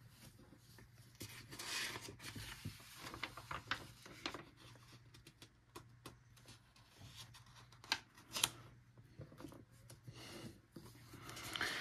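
Paper rustling as coloring-book pages are turned and pressed flat under a furry costume paw, in irregular brushes and soft ticks, the sharpest about eight seconds in. A faint steady low hum runs underneath.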